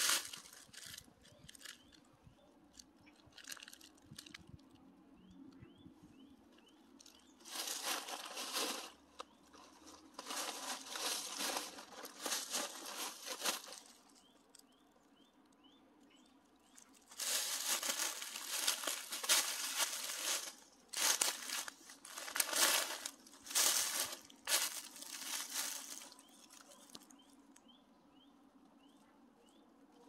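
Footsteps crunching through dry fallen leaves, in several stretches of walking with pauses between.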